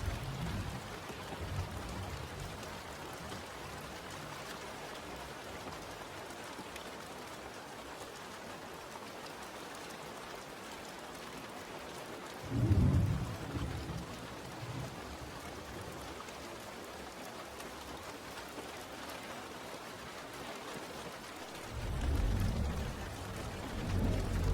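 Steady rain with rolls of thunder. A sudden low crack of thunder comes about halfway through, and a longer rumble builds near the end.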